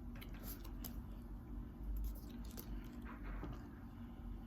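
Pokémon trading cards handled and flipped through, with faint rustling and soft clicks of the cards sliding over one another.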